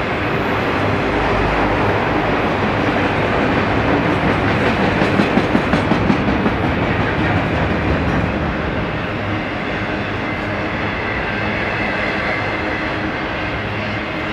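Freight train rolling past, its wheels clattering on the rails, with a quick run of clacks about five seconds in.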